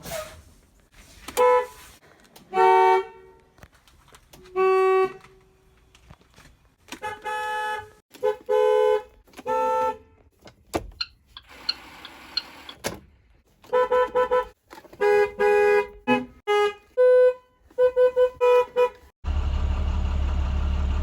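IC CE school bus horns honking again and again, short toots and blasts held about a second, each a two-note chord. Near the end a loud steady low rumble starts.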